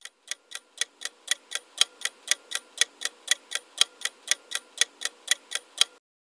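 Ticking-clock sound effect counting down a quiz timer, about four even ticks a second, stopping near the end.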